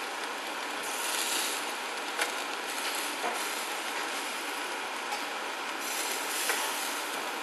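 Pieces of beef tripe (mino) sizzling on a wire-mesh grill: a steady hiss that swells now and then, with a few light clicks of metal tongs against the grill.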